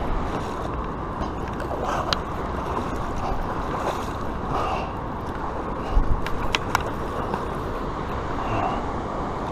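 Steady rushing noise of wind and river water, with a low thump and a few sharp clicks about six seconds in.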